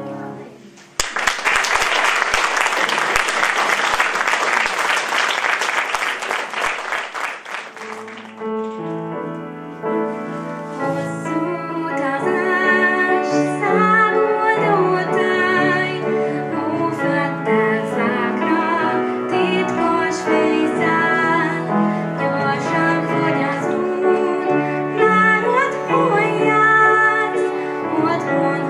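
Audience applauding for about seven seconds, then a group of children and young people singing with piano accompaniment.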